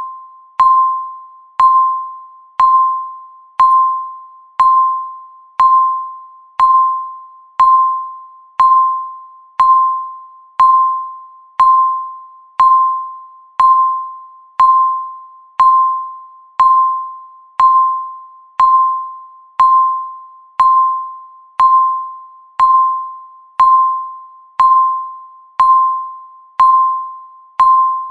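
Countdown timer beeping once a second: each beep is a single clear electronic tone that starts sharply and fades away before the next, in an even, unbroken run.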